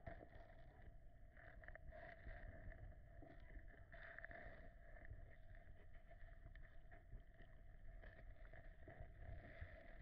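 Near silence: faint muffled noise picked up by a camera under water in a tank, a low rumble under a steady hum, with occasional soft clicks.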